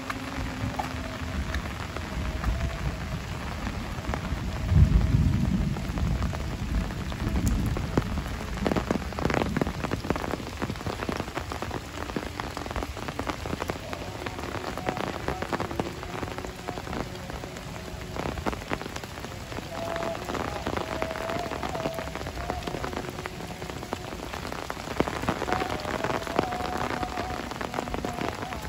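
Heavy rain falls on leaves, bamboo and a concrete path, with many individual drops striking close by. A brief low rumble comes about five seconds in and is the loudest moment.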